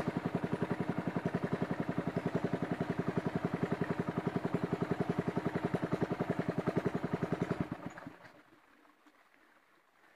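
Small wooden river boat's engine running with a fast, even pulse, then dying away about eight seconds in as it stops.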